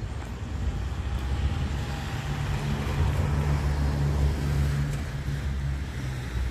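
A motor vehicle passing close by on the street: engine hum and tyre noise swell, are loudest around the middle, then fade.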